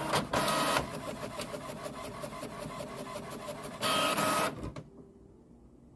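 Samsung SL-J1780W inkjet printer printing a page. A loud burst of mechanism noise at the start gives way to a steady run of fast, even ticks as the print head passes; another loud burst comes about four seconds in, and the printer goes quiet about a second later.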